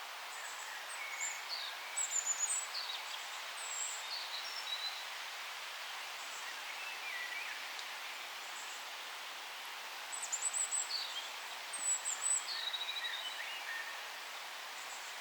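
Forest songbirds calling in short high chirps and whistles, in two spells: one starting about a second in, the other around ten seconds in. They sit over a steady forest hiss.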